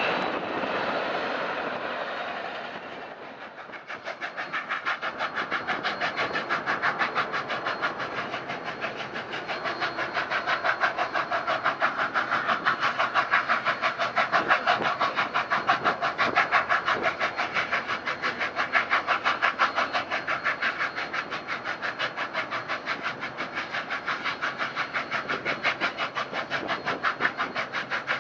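Passenger cars rolling past and fading away for the first few seconds. Then Union Pacific 844, a 4-8-4 steam locomotive, works along at speed with a rapid, even beat of exhaust chuffs.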